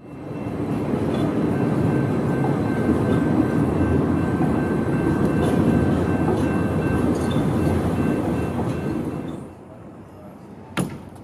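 Calgary Transit CTrain light-rail train running past on street track: a dense, steady rumble with a faint high whine over it. The train sound drops away about nine and a half seconds in, and a single sharp click follows about a second later.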